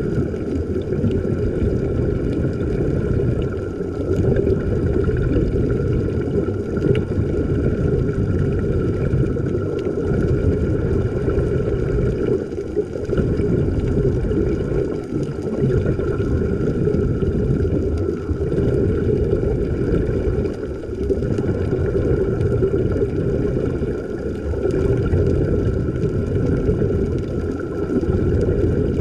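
Steady low rumbling noise with a faint steady high tone running through it, swelling and dipping gently every few seconds.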